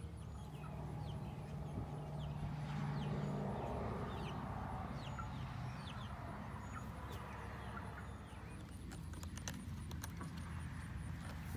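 Chickens clucking and calling, with many short, high, falling chirps in the first part and a low steady hum underneath; a few sharp ticks near the end.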